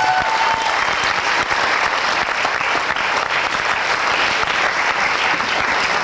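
Audience applauding steadily for an award winner.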